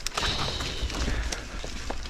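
Mountain bike rolling along a dirt trail: a steady low rumble of tyres and air on the mic, with scattered clicks and rattles from the bike and a short high whine near the start.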